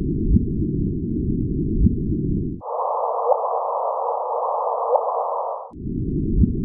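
Gravitational waves from two colliding black holes converted into sound: short rising chirps about every one and a half seconds over a low hiss. About a third of the way in, the whole sound jumps up in pitch for some three seconds, then drops back down.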